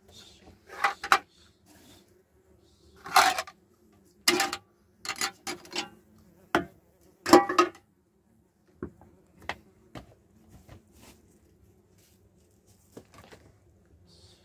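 Irregular knocks and short clatters of hard objects being handled, about a dozen, some single sharp taps and some longer rattling scrapes, over a faint steady hum.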